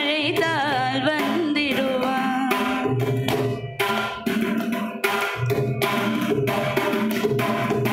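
Mridangam played in a quick, dense run of strokes. Over the first two seconds or so a female voice finishes a Carnatic phrase with wavering, sliding ornaments.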